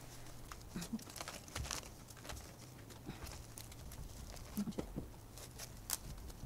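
Sphagnum moss and a staghorn fern being pressed and packed by hand onto a plastic ventilation panel: faint crinkly rustling with small scattered clicks.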